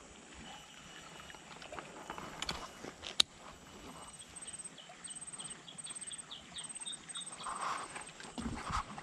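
Quiet open-air swamp-side sounds: a single sharp click about three seconds in, then runs of rapid, evenly repeated high chirping, and rustling with a few low thumps near the end as someone pushes through brush.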